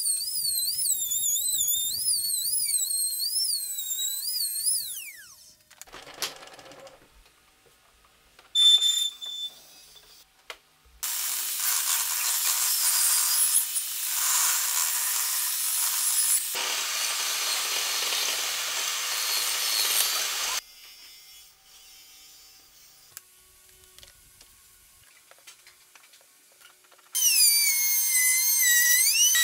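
A trim router whines at high speed, its pitch wavering as it cuts, then spins down about five seconds in. After a loud knock, a table saw cuts wood for about ten seconds. Near the end a router table's motor starts whining again as a board is fed past the bit.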